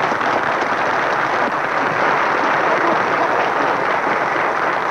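A crowd applauding steadily, a dense patter of many hands clapping with a few voices mixed in.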